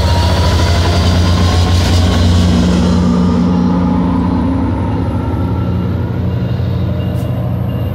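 Metrolink EMD F59PHR diesel-electric locomotive running loud at close range as it pulls away from a stop, its engine hum and rumble easing after about three seconds as the locomotive moves on and the passenger coaches roll slowly past.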